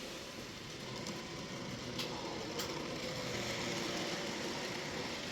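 Model railway train running on a layout: its small electric motor whirring steadily, with a couple of sharp clicks about two seconds in.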